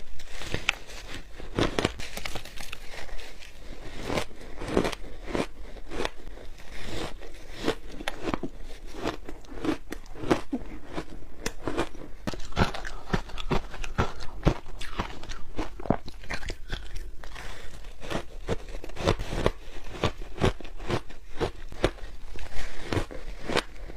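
Soft, crunchy ice being bitten and chewed close to the microphone: a dense, irregular stream of crunches and crackles.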